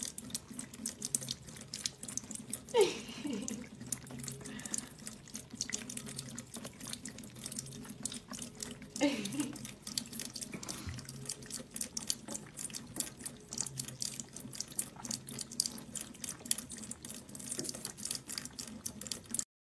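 Kitchen tap running in a thin trickle into a metal sink, spattering and dripping as two cats lap at the stream. Two brief falling voice-like sounds stand out, about three and nine seconds in.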